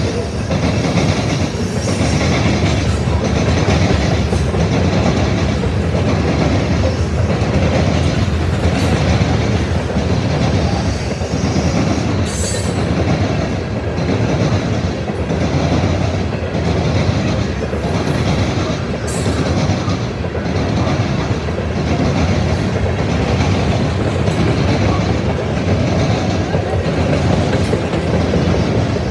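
Norfolk Southern covered hopper cars of a freight train rolling past: a steady rumble of steel wheels on rail, with a repeating clickety-clack as the wheels pass over the rail joints.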